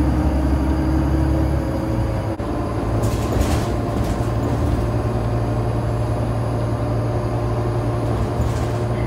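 City bus running, heard from inside the passenger cabin: a steady low engine and drivetrain hum. The hum shifts abruptly about two and a half seconds in, and a brief hiss comes about three seconds in and again near the end.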